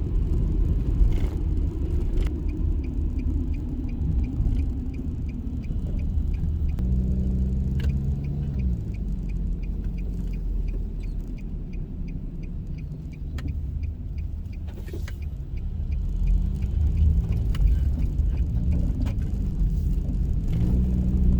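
Car driving, heard from inside the cabin: steady low engine and road rumble, with the engine note rising and falling a couple of times as the car speeds up and slows. A faint, regular light ticking runs for several seconds near the middle.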